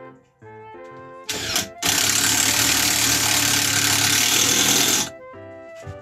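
Cordless drill-driver running into a wooden batten: a short burst about a second in, then a loud, even run of about three seconds that stops suddenly.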